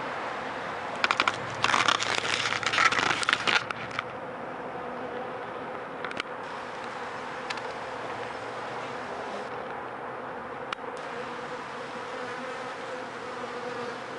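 Honeybees buzzing steadily around an open hive. Between about one and four seconds in, a louder burst of crackling and rustling sits over the buzz.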